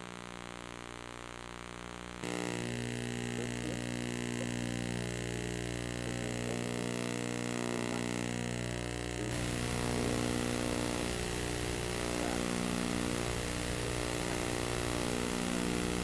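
A steady electrical buzz with hiss over it, jumping louder about two seconds in and again about nine seconds in.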